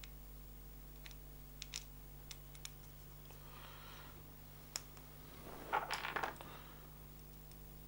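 Light clicks of small plastic parts and a screw being handled, then a brief clatter about six seconds in as hand tools are picked up off the workbench, over a steady low hum.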